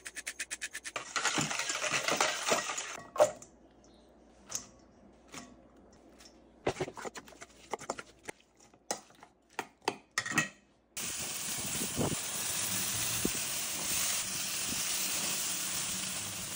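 A pepper grinder clicking quickly, then mixing in a stainless steel bowl: a stretch of scraping, then scattered clinks and taps of a utensil against the bowl. From about eleven seconds in, buffalo-sauced chicken sizzles steadily on a grill grate.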